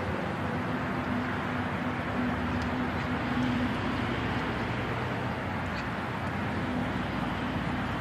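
Urban park ambience: a steady wash of distant road traffic, with a faint low engine drone in the first half that returns near the end.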